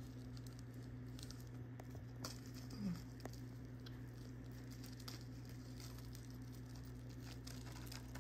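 Faint scattered ticks and light handling noise of fingers working at a small cardboard jewellery box to free a bracelet from it, over a steady low hum. A brief low tone sounds about three seconds in.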